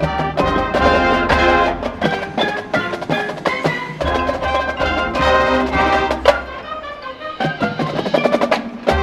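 High school marching band playing: brass and keyboard-percussion chords over crisp drum and percussion hits, easing off about seven seconds in and swelling again near the end.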